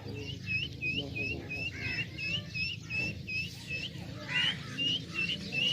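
Helmeted guineafowl keets peeping: a rapid series of short, high peeps, about four a second, with a brief break about two thirds of the way through.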